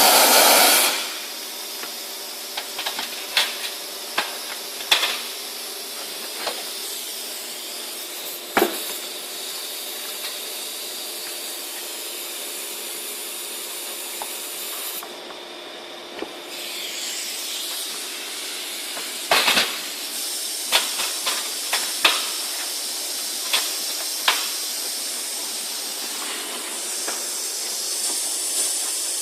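Compressed-air wet/dry vacuum cleaner running with a steady hiss, broken by scattered sharp clicks and clatters as debris is sucked up.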